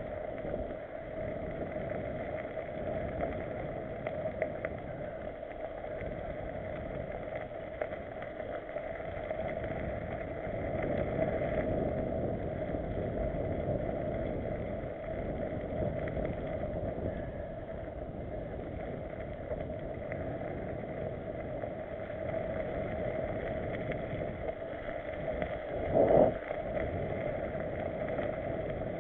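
Steady rumbling noise of a mountain bike riding fast over a dirt forest trail, heard from a camera mounted on the bike or rider, with one short louder sound near the end.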